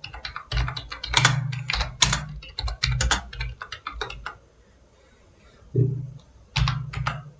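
Typing on a computer keyboard: a quick run of keystrokes for about four seconds, a pause of about a second, then a few more key presses near the end.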